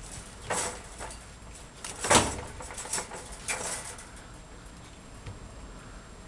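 Two cats scuffling in a wire pet cage: a few sudden rattles and knocks of the cage wire and its wire-grid floor, the loudest about two seconds in, then it goes quiet after about four seconds.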